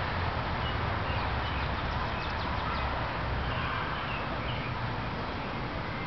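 Steady outdoor background noise with a low rumble, and faint short bird chirps scattered through it.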